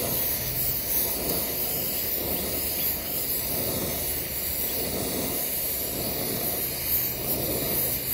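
Oxy-fuel brazing torch with a rosebud tip, its flame hissing steadily as it heats a 3/4-inch copper refrigerant line joint toward cherry red before the brazing rod goes in.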